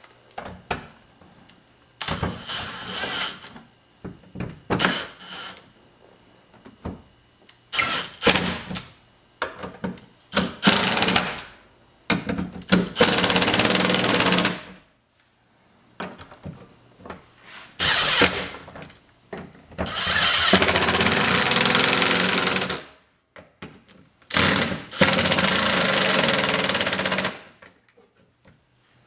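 Cordless impact driver with a T50 Torx bit running in about eight bursts of one to three seconds, several opening with a brief high whine, as it backs out and drives the door hinge bolts.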